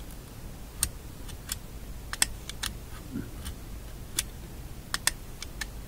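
A dozen or so sharp, irregular clicks: a hand magnet tapping and snapping against the internal magnet of a Philco shadow tuning meter as it is stroked over it again and again to re-magnetize it.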